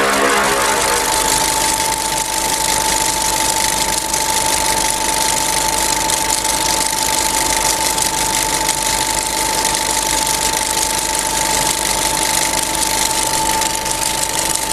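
Steady mechanical running noise with a constant high whine that sets in about a second in, as music fades out; it holds unchanged with no speech.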